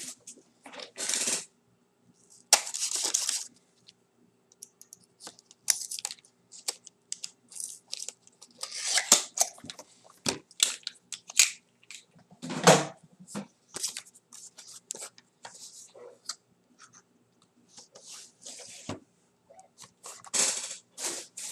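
Hockey card box packaging being torn and crinkled open by hand, in short irregular rustles and crackles, with one louder thump about halfway through.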